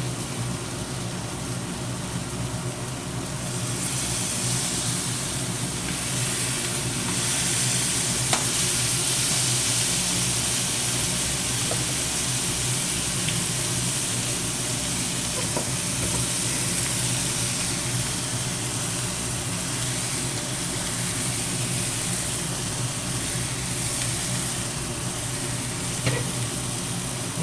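Jumbo prawns frying in hot coconut oil in a pan: a steady sizzle that grows louder about four seconds in, with a low hum underneath and a few faint clicks.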